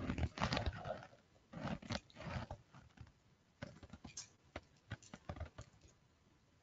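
Computer keyboard keystrokes and mouse clicks, coming in short irregular clusters and dying away near the end.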